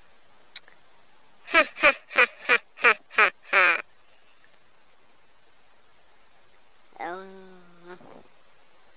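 Steady high chirring of crickets throughout. About a second and a half in, a man's voice laughs in seven short, loud bursts over about two seconds. A brief vocal sound follows about seven seconds in.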